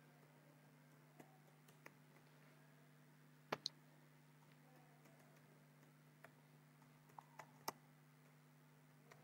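Faint, scattered computer keyboard key clicks over a low steady hum, with two sharper clicks close together about three and a half seconds in.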